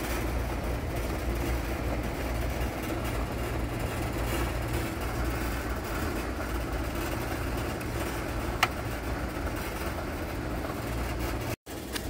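Steady low machinery hum, with one brief click about eight and a half seconds in.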